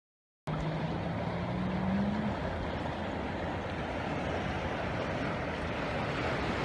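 Muddy floodwater rushing in a swollen channel: a steady, noisy rush that starts abruptly about half a second in. A low hum rises slightly in pitch during the first two seconds.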